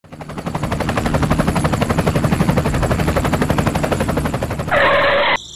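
Helicopter rotor chopping: a fast, even chatter over a low hum, fading in at the start. About five seconds in it gives way to a short, loud hiss that cuts off abruptly.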